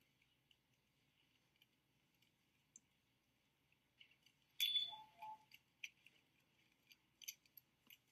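Mostly near silence, with faint clicks of small objects being handled on a table. About halfway through there is a brief louder crackle and clatter, followed by scattered clicks.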